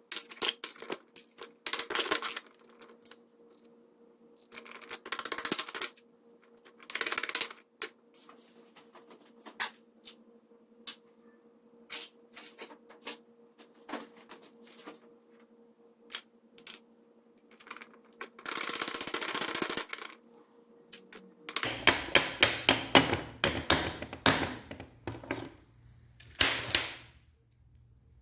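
Small metal parts clicking, clinking and scraping as they are handled and fitted, with a faint steady hum behind. About three-quarters of the way through the hum changes to a lower one and the clicks come thick and fast.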